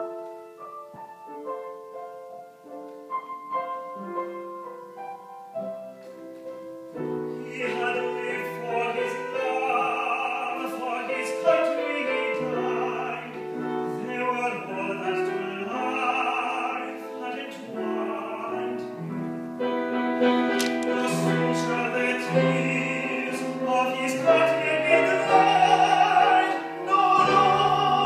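Piano playing alone for about seven seconds, then a man's classical solo voice comes in, singing with vibrato over the piano accompaniment.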